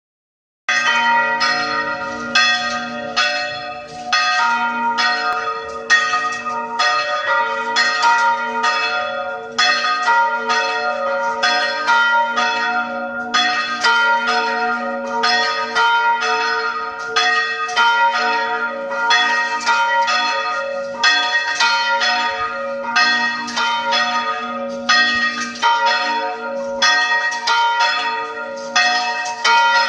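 Rope-pulled church bells of several pitches ringing, struck over and over in a continuous peal. The uploader says the ringer lacked the strength to pull them properly, so the strokes come broken up and uneven rather than running together.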